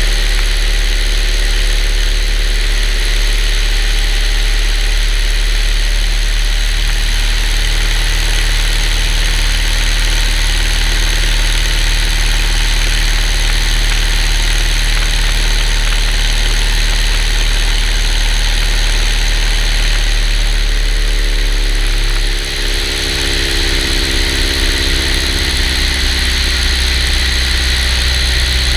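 Kitfox light aircraft's piston engine and propeller running steadily. About twenty seconds in the engine note shifts in pitch and dips briefly in level with a change of power, then settles at a new steady note.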